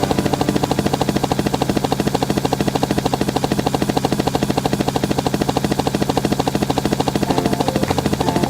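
A machine sound running steadily: rapid, even pulsing over a constant low hum.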